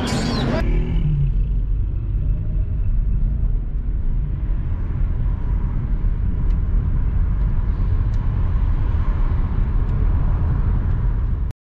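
Steady low road rumble of a moving car heard from inside the cabin, engine and tyre noise, cutting off suddenly near the end.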